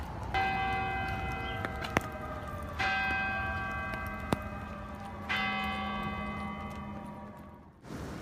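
Church bell tolling three times, about two and a half seconds apart, each stroke ringing out and fading. Two sharp clicks fall between the strokes.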